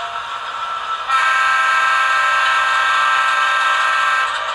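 Sound-decoder air horn of a ScaleTrains HO-scale GE C44-9W model with ESU LokSound, sounding one steady chord-like blast of about three seconds that starts about a second in and cuts off sharply. A steady lower background sound runs underneath.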